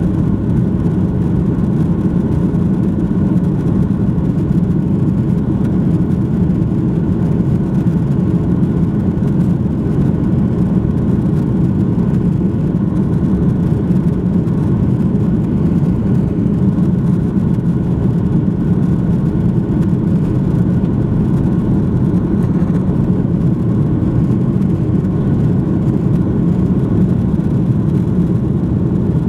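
Airbus A330-300's Rolls-Royce Trent 772 turbofans at takeoff thrust, heard inside the cabin behind the wing: a loud, steady rumble with a faint whine on top during the takeoff roll, the airliner lifting off near the end.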